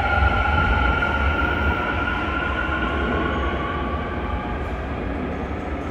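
Busan Metro Line 2 electric train accelerating away from the platform: the VVVF inverter and traction motors whine in several steady tones, one rising slowly in pitch, over a low rumble, and the sound gradually fades as the train pulls out.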